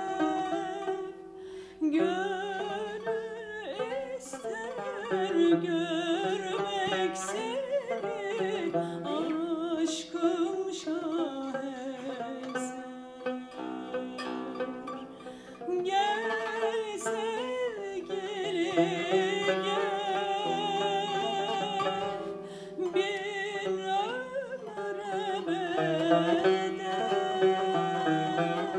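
A woman singing a Turkish classical makam song with a wavering, ornamented line, accompanied by a plucked Turkish tanbur. About halfway through, the voice pauses while the tanbur plays a quick run of repeated plucked notes.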